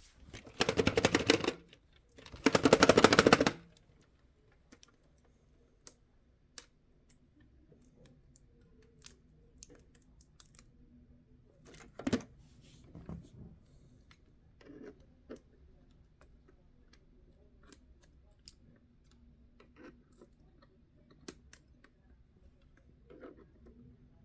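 Two rapid rattling bursts, each about a second long, then scattered light clicks and taps of plastic handling: a VHS cassette being worked at in its plastic case to pop it out.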